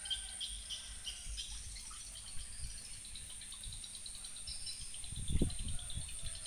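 Rainy outdoor ambience: a steady high-pitched insect chirring with faint chirps in the first couple of seconds, rain dripping, and a soft low thump about five seconds in.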